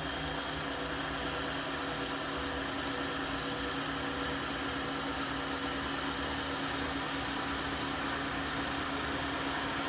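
Tineco Floor One cordless wet-dry vacuum running its self-cleaning cycle at the brush-roller cleaning stage: motor and roller run with a steady whirring hum that holds an even pitch and level.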